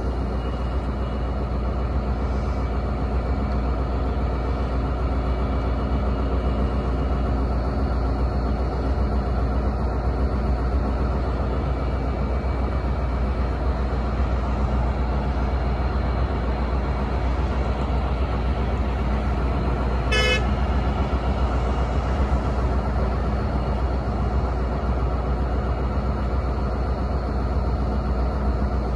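Siemens Charger SC-44 diesel locomotive idling at a standstill, with a steady low engine drone. About twenty seconds in there is one brief horn toot.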